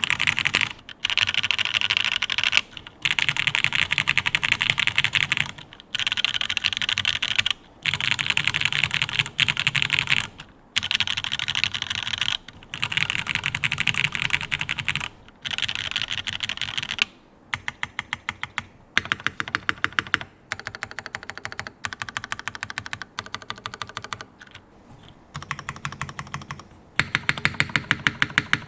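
Typing on a Jane v2 CE custom mechanical keyboard with Cherry MX Black linear switches in a top-mounted aluminium plate. The keystrokes come in fast runs with short pauses between them. From about halfway through, the strokes are slower and more separate.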